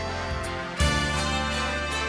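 Background music with a steady beat and sustained bass notes, the bass moving to a new, louder note just under a second in.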